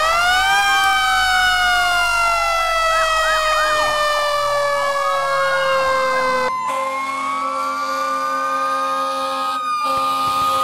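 Fire engine sirens: one siren wails up sharply, then slowly falls in pitch, while a second siren yelps rapidly up and down over it. After an abrupt cut about six and a half seconds in, a steadier siren tone holds.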